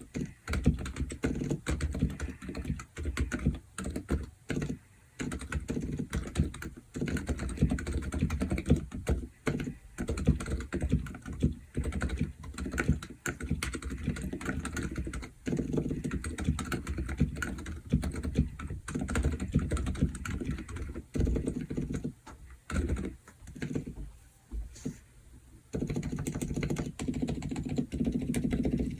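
Typing on a Womier K66 mechanical keyboard with stock, unlubed and unfilmed Silent Alpaca silent linear switches, the board set straight on the desk without a deskmat. A steady run of low, dull keystrokes, thinning to a few scattered strokes a little before the end.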